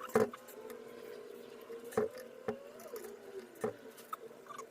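A screw being driven into a deadbolt lock by hand: scattered sharp clicks of the screwdriver and metal parts, about six in all, over a faint squeak.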